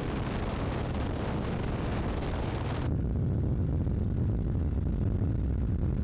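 Steady wind rush and low engine sound of a motorcycle at road speed. About three seconds in the high hiss cuts off abruptly, leaving the low engine sound.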